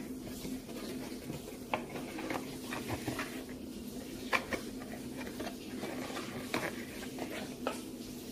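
A cardboard product box being handled, with scattered light taps, clicks and rubs over a steady low background hum.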